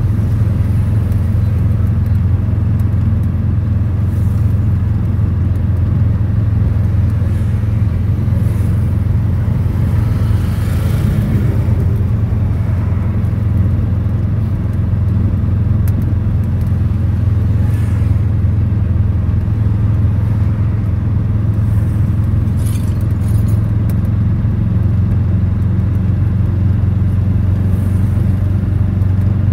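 Tuk-tuk engine running steadily while riding, heard from inside the passenger cabin as a continuous low drone with road noise, plus a few brief higher hisses.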